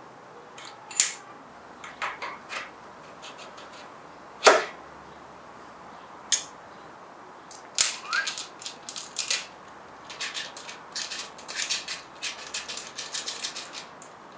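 Irregular sharp clicks and knocks of tools and small parts being handled during bicycle assembly, with a few louder single knocks and a quick run of lighter clicks near the end.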